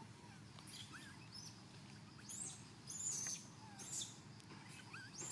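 Short, high chirping bird calls in the tree canopy, some sweeping up or down in pitch, with a few louder short rustling bursts from leaves and branches.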